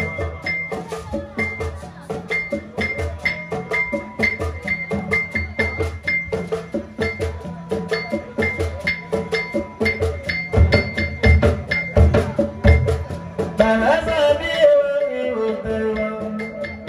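Live gohoun band music: fast, dense percussion with a short high ringing note repeating about twice a second. About 14 s in, a sliding melodic phrase comes in over the beat.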